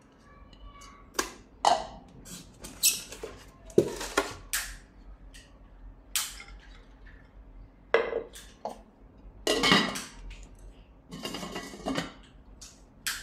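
A ribbed glass pot and its metal-rimmed glass lid being handled and set down: a string of irregular clinks and knocks, some ringing briefly, with a few short scrapes.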